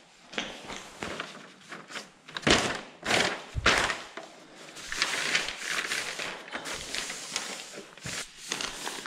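Tyvek housewrap sheet rustling and crinkling as it is folded and pressed flat by hand. There are a few dull thumps of hands on the sheet about two and a half and three and a half seconds in, then denser rustling near the end.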